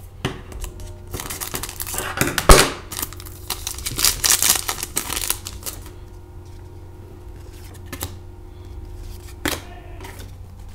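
A trading-card pack wrapper being torn open and crinkled, in bursts over the first five seconds or so, with the sharpest rip about two and a half seconds in. After that the cards are handled more quietly, with a couple of soft clicks.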